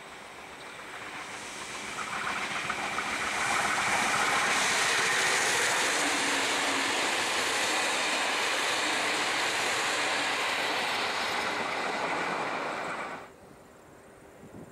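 Train with stainless-steel passenger carriages passing close by: wheels and carriages rolling over the rails, growing louder as it nears and then holding steady. The sound cuts off suddenly near the end.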